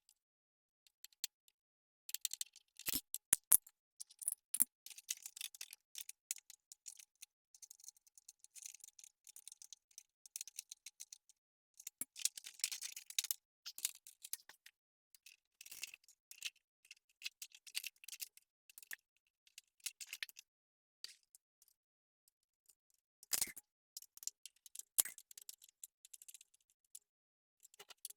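Scattered clicks, rattles and short scrapes of hand tools and plastic motorcycle fairing panels being unfastened and worked loose, with irregular gaps between them.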